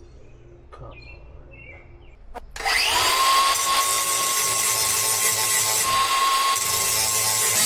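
An electric power saw starts about two and a half seconds in. Its motor whine rises quickly, then holds steady under loud cutting noise as it cuts an aluminium-backed panel for a door.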